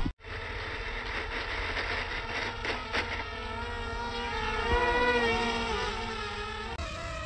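Small brushed electric motors and 50 mm propellers of a foam RC model airliner whining at full power as it takes off and flies past. The pitch bends up and down and is loudest about five seconds in.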